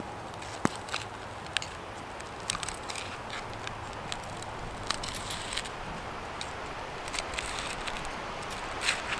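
Wood fire crackling in a Dakota fire pit: irregular sharp pops and snaps over a steady hiss.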